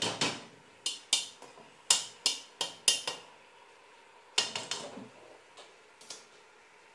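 A red plastic grater tapped repeatedly against the rim of a metal cooking pot to knock blended ginger off it: about a dozen sharp, irregular knocks in the first three seconds, then a few fainter ones.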